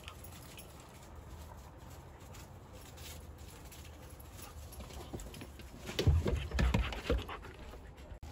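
A quick run of heavy, dull thumps and knocks on wooden steps and deck boards, lasting about a second and starting about six seconds in. Before them, only faint rustling and ticks.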